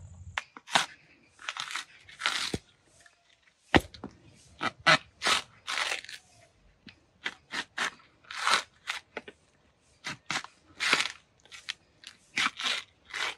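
Coconut being husked on a pointed metal spike: an irregular run of short, rough tearing sounds, about one or two a second, as the husk is stabbed onto the spike and its fibres are ripped apart.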